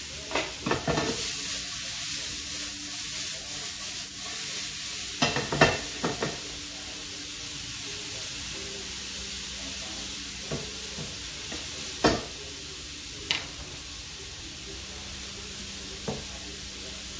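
Sliced mushrooms and onion sizzling steadily in a frying pan on a gas burner, a cooking utensil stirring them and knocking against the pan now and then. The loudest clatter comes about five to six seconds in.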